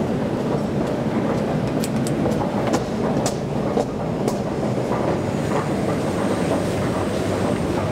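1996 KONE inclined elevator car running along its inclined track: a steady rumble with several sharp clicks around the middle, and a faint high whine near the end.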